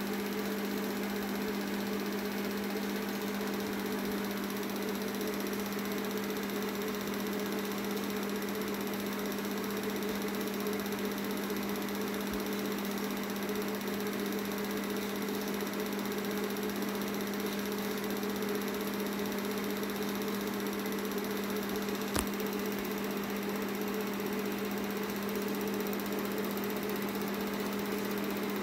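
Film projector running steadily: a continuous motor hum and whirr over a hiss, with a single faint click late on.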